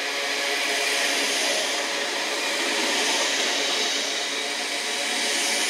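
TfL Rail Class 315 electric multiple unit moving past close along the platform: a steady rush of wheel and traction noise with a faint hum.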